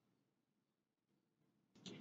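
Near silence: room tone, with a faint sound starting just before the end.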